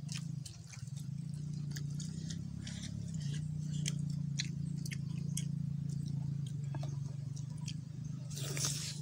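Close-up eating sounds: wet mouth clicks and chewing as grilled chicken is torn apart by hand and eaten, over a steady low hum. A louder, noisy mouth sound comes near the end as he bites into a piece.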